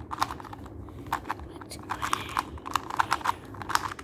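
Plastic 2×2 Rubik's cube being turned in the hands: quick, irregular clicking of its layers rotating, a few clicks a second.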